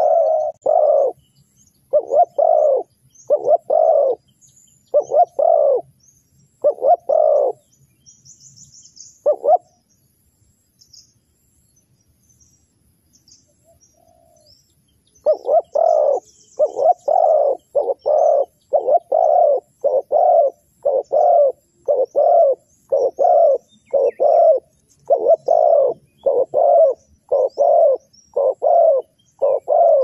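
Spotted dove cooing in repeated short, low coos. They come in uneven groups at first, stop for about five seconds in the middle, then run on steadily at about one and a half coos a second. Faint high chirps of small birds sound in the background.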